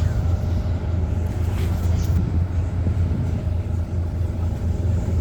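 City bus engine and road noise heard from inside the cabin while the bus is under way: a steady low drone.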